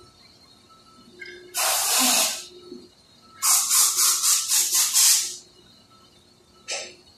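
Pressurised air or gas hissing in loud bursts beside an injection moulding machine: one burst of about a second, then a run of about seven quick pulses at roughly four a second, and a short burst near the end.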